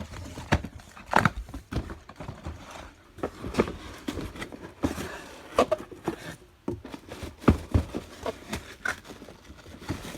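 Cardboard box and packaging being opened and handled: a string of irregular clicks, knocks and rustles.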